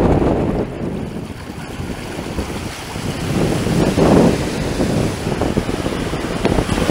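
Ocean surf washing up the beach and swirling around wading bare feet, with a louder surge of rushing water about four seconds in. Wind buffets the microphone.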